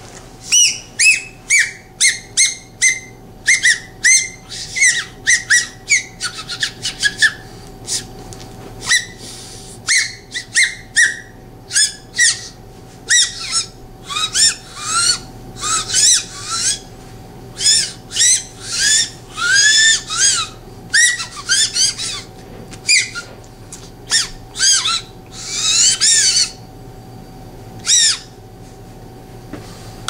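American robin songbird whistle, a tiny tongue-held bird whistle, blown in dozens of quick high chirps and warbles that imitate a robin's song. Many chirps bend down in pitch, and they come in fast runs with short gaps, a few held a little longer near the middle and in the last few seconds. The whistle falls silent shortly before the end.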